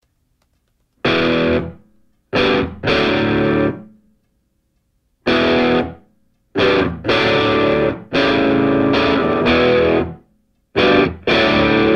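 Background music: distorted electric guitar chords struck in short stop-start blasts, with dead silence between them, starting about a second in.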